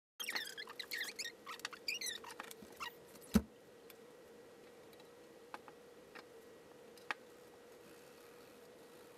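A run of short, high squeaks and scrapes from hands working on a repaired cymbal's trimmed edge with painter's tape and sandpaper. A single sharp knock comes about three and a half seconds in, then a few faint clicks over a steady low hum.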